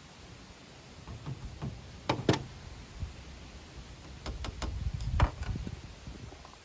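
Several sharp knocks and clicks of hand tools being handled and set down on a tabletop, including a metal clamp, with a pair of louder ones about two seconds in and another cluster around five seconds.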